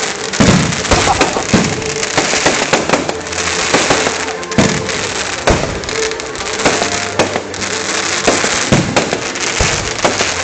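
Fireworks display: a dense, irregular run of bangs and crackling from bursting shells, several reports a second over a continuous crackle.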